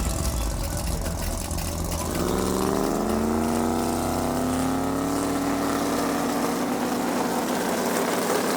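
A car engine running, its pitch climbing slowly from about two seconds in and then holding steady.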